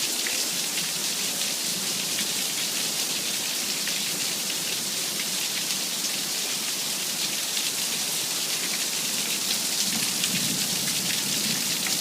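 Heavy rain pouring down, a steady dense hiss of rain hitting surfaces.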